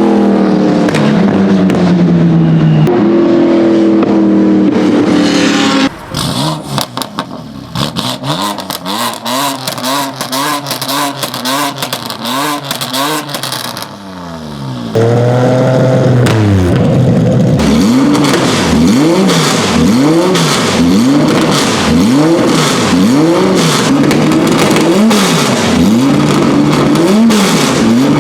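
Race car engine revved hard and let back down over and over, with sharp exhaust pops and crackles between the revs, typical of anti-lag or overrun backfire. The engine pitch falls away over the first few seconds. The sound then turns quieter and thick with crackles until about fifteen seconds in, then goes loud again with the revs rising and falling about once a second.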